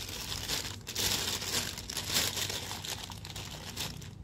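Clear plastic packaging bag crinkling and rustling as a hand works it loose from a tray of shishamo fish.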